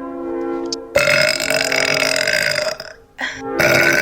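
A woman belching loudly: one long, drawn-out burp starting about a second in and lasting nearly two seconds, then another beginning near the end, over steady background music.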